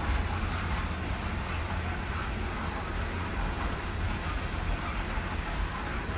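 Coal hopper cars of a freight train rolling past: a steady rumble of steel wheels on rail.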